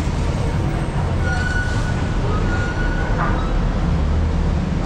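City street traffic: motorcycle engines running and passing, with a steady low rumble. A thin high tone sounds for about two seconds near the start.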